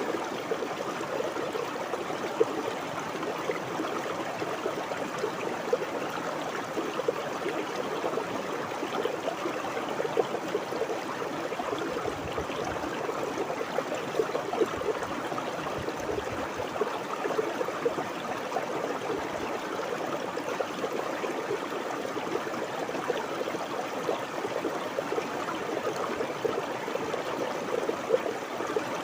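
Shallow river water flowing and babbling steadily over rocks, with small splashes and gurgles rising out of the even rush.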